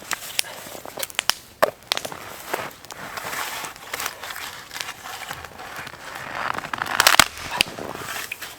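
Crunching and sharp cracking underfoot in dry, deeply frozen snow and brush: irregular snaps, with a denser burst of crunching a little before the end.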